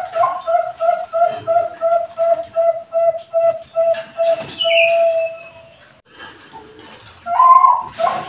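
Bangkok-type perkutut (zebra dove) singing: a rapid run of short, even coos at one pitch, about four a second, that ends in a longer held note about five seconds in. After a pause of about a second and a half, the next song starts near the end with a higher opening note.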